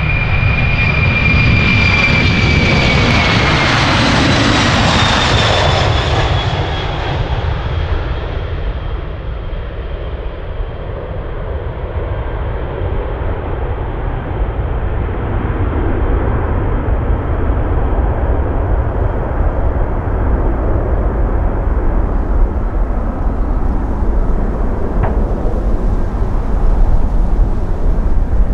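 Boeing 767-300's twin General Electric CF6 turbofan engines at takeoff thrust as the jet lifts off and climbs away. A high fan whine drops in pitch over the first few seconds as the aircraft passes, then gives way to a steady low rumble that carries on as it recedes.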